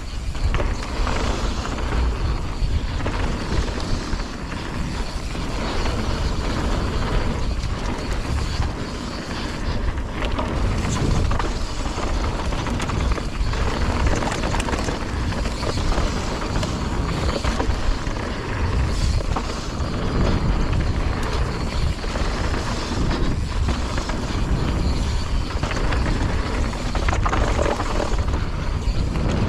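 Continuous wind buffeting on a GoPro action camera's microphone, with a mountain bike rattling over rough trail during a downhill run. It makes a steady, heavy rumble that rises and falls without a break.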